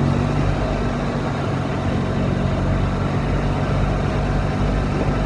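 Golf cart driving along at a steady speed: a steady low motor hum over a constant rushing noise, with no change in pitch or level.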